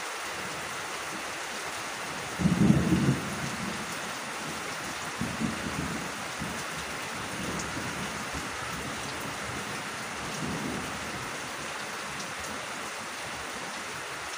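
Steady rain falling on fields and foliage, with a brief low rumble about two and a half seconds in and fainter rumbles later.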